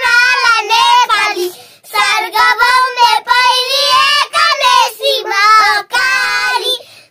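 Three young girls singing a song together without accompaniment, in high children's voices, the phrases broken by a short pause about two seconds in.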